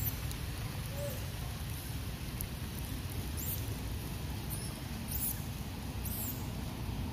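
Several short, very high-pitched chirps, each falling in pitch, scattered over a steady low rumble.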